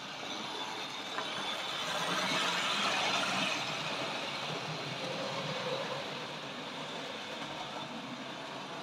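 Model trains running on the layout: the steady whirr of small electric motors and wheels rolling over the rails, growing louder about two seconds in and easing back after a couple of seconds.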